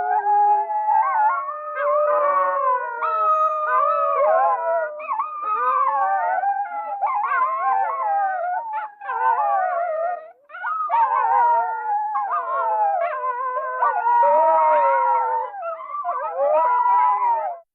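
A group of coyotes howling together, several wavering howls overlapping, slightly pitched down. The chorus cuts off suddenly near the end.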